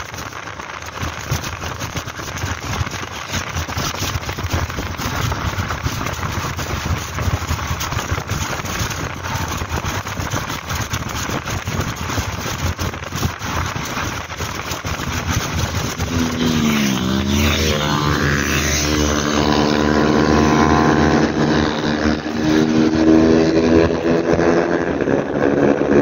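Wind rushing over the microphone on a moving motorcycle. About two-thirds of the way in, the motorcycle's engine note comes through, its pitch dipping and then rising, and it grows louder near the end.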